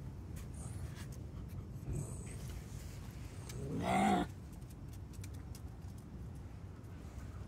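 A puppy gives one short squawk, a cry that rises in pitch, about halfway through: an attention-seeking call to be petted. A soft knock comes a couple of seconds before it.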